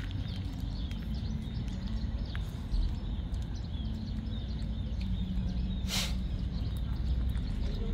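Outdoor background noise: a steady low rumble with faint, short high chirps scattered through it, and one sharp click about six seconds in.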